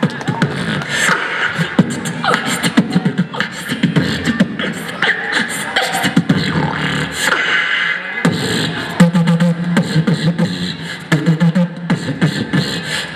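A beatbox crew performing live through a PA, several mouths layering fast vocal percussion: kick, snare and hi-hat clicks in a steady rhythm. About eight seconds in, a low held bass note comes in under the beat.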